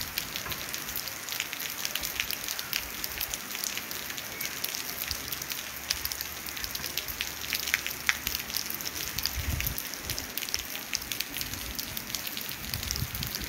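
Steady light rain falling on a flooded asphalt street and puddles: a dense patter of drops over an even hiss, with a few brief low rumbles about two-thirds of the way through and near the end.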